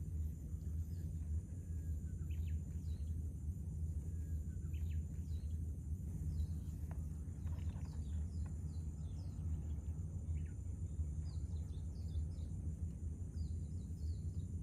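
Outdoor ambience: a steady low rumble under many small bird chirps that come and go, busier in the second half, with a steady high insect drone.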